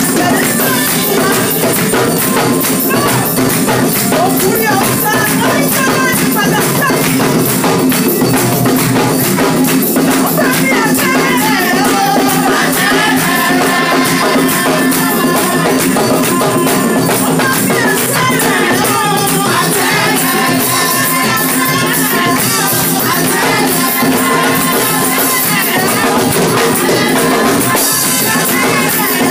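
Live church praise music: a congregation singing, led by a voice on a microphone, over a steady dense rattle of tambourines and shakers.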